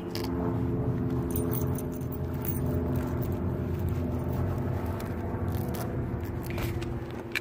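Low, steady rumble of a motor vehicle's engine running nearby, with a few faint held tones over it. Scattered light clicks and scrapes from the phone being handled run through it.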